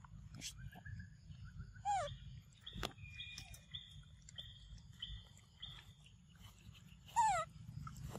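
Macaque monkeys giving short high squeals that fall in pitch, one about two seconds in and a louder one near the end. Between them comes a run of short high steady whistling notes, and there is one sharp click just before the three-second mark.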